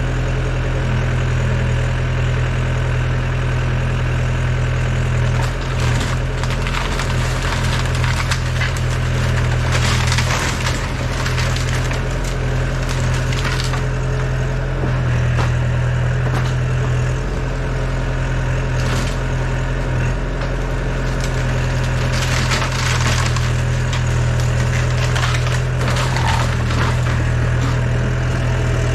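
Yanmar ViO80 excavator's diesel engine running steadily while wooden structure cracks, splinters and crunches under the machine in several bursts: a wooden garage being demolished.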